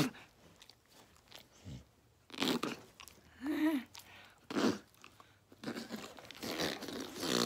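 A dog licking and mouthing at a person's face right at the microphone: a series of short, wet smacking sounds, with a couple of brief voiced sounds in between.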